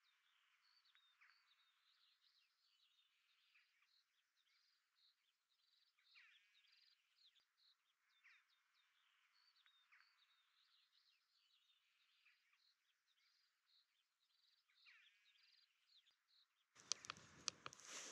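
Near silence with very faint outdoor birdsong: scattered high chirps and trills. Near the end a few sharp clicks come in, and the background sound gets louder.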